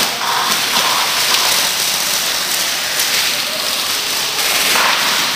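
Dense, steady patter of airsoft guns firing and BBs striking plywood barricades, a continuous rain-like crackle.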